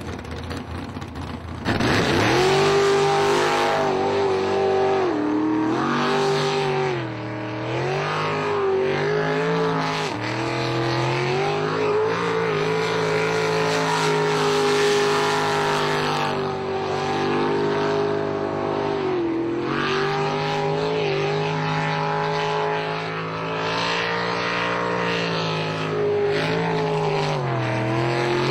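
Sprint jet boat's engine running hard. It comes in suddenly and loudly about two seconds in, then its pitch repeatedly drops and climbs again every few seconds as the revs fall and rise through the course's turns.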